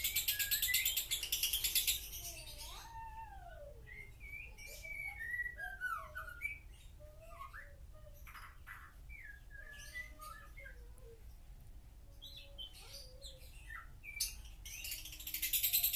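Lovebird singing: a fast, dense, high-pitched chatter for the first couple of seconds, then a run of slower, separate whistled notes that slide up and down. The fast chatter returns near the end. This mixed, mimicking song is what keepers call a 'konslet' lovebird.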